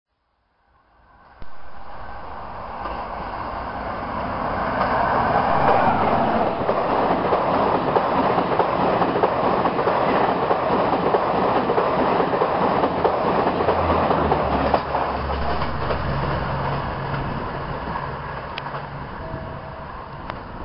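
Howrah–New Delhi Yuva Express passenger train running through a station at high speed, about 130 km/h. The noise of the wheels and coaches swells as it approaches, stays loud while the coaches stream past, then eases off as the rear of the train draws away.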